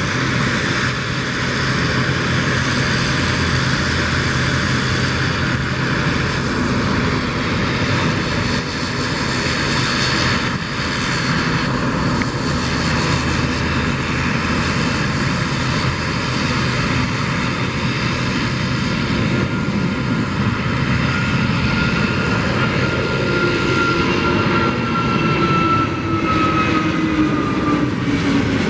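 Jet airliner's engines running steadily as it taxis on the ground, a continuous rushing noise; near the end an engine whine slides down in pitch as the aircraft passes close by.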